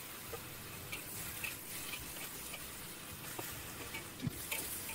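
Diced potatoes and eggplant strips sizzling in hot oil in a wok, with a few clicks of a metal spatula against the wok as they are turned.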